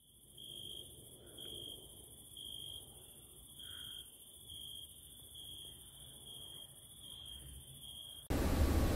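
Crickets chirping at night. One chirps at a steady high pitch about once a second over a continuous higher trill. Near the end the chirping cuts off suddenly and gives way to a steady hiss.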